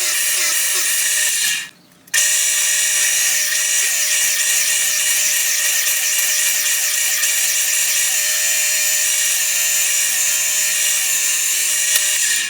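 Power drill running steadily as it bores holes through a wooden vise jaw blank. It stops briefly about two seconds in, then starts again.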